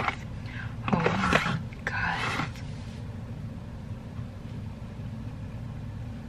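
Short wordless voice sounds and mouth noises from someone eating, about a second in and again near two seconds, over the steady low hum of a room air conditioner.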